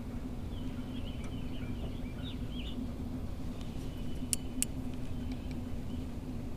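Birds chirping faintly over a steady low hum, with two sharp clicks close together about four and a half seconds in.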